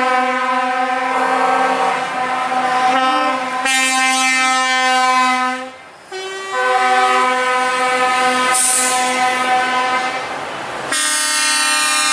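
Truck air horns sounding long, loud multi-tone chords that change pitch several times, with a short break about halfway through.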